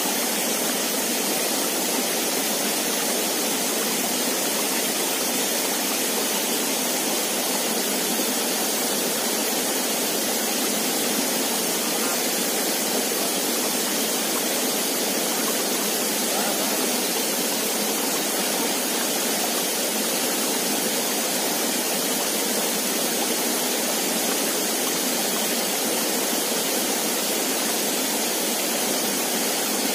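Water pouring over a small rock waterfall into a shallow, stony stream: a steady rushing hiss that does not change or break.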